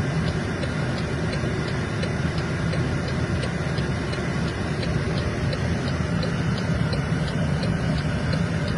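A vehicle running steadily, with a light, even ticking about three times a second over the rumble.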